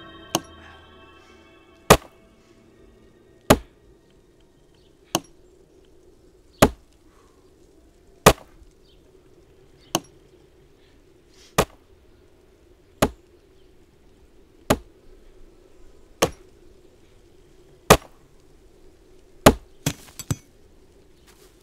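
Axe chopping into a thin tree trunk: about a dozen sharp blows at a steady pace, one every second and a half or so, then two quicker knocks near the end.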